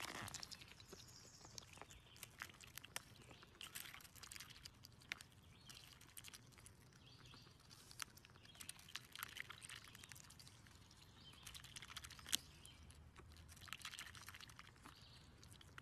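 Faint, scattered clicks and small splashes as a duck's bill dabbles in a plastic cup of iced drink, knocking the ice and the cup's rim, with faint bird chirps outdoors.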